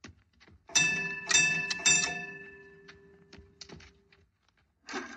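A mine signal bell rung three times by a pull cord, the strokes about half a second apart. Each ring hangs on and dies away over a couple of seconds. Near the end there is a brief scuffling noise.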